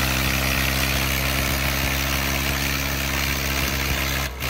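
Diesel engines of a Swaraj 855 FE and a Mahindra Arjun Novo 605 tractor running steadily under load as they pull against each other in a tug-of-war. The sound is a steady engine hum with a hissy edge, and it drops out for an instant near the end.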